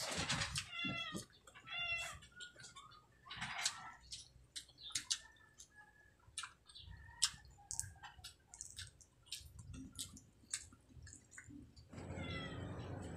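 Close-up eating sounds of hand-eaten fried tilapia and rice: lip smacks and wet chewing clicks in quick, irregular succession. A few short, high-pitched wavering calls come in the first few seconds.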